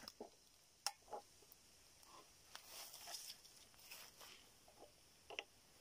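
Near silence with faint, scattered clicks and rustles from gloved hands handling a stopped chainsaw. A sharper click comes about a second in and another near the end.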